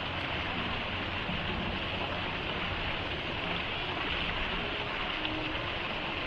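Small waterfall pouring into a rock pool: a steady rush of falling and splashing water.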